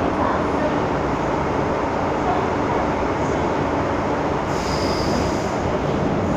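Inside an MTR Island Line M-Train carriage on the move: steady running noise of wheels on rail and the train's motors. A brief high wheel squeal comes about four and a half seconds in and lasts about a second.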